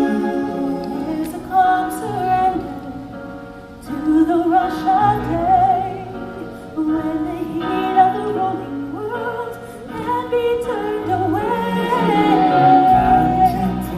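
Slow show music: held orchestral chords under a high, wavering melody that sounds like wordless singing with vibrato.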